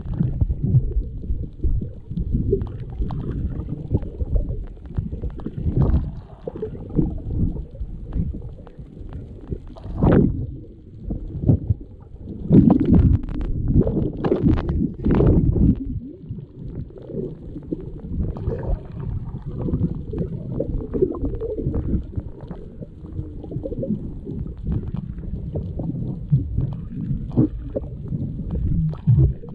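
Muffled underwater rumble of water moving around a diver swimming with a speargun, heard through an underwater camera housing, with louder surges of water noise about a third of the way in and again around the middle.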